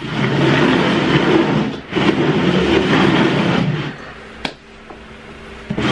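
Upturned hard plastic bowls scraping and rumbling as they are slid around on a tabletop to shuffle them. The sliding stops a little over halfway through, and a single sharp knock follows.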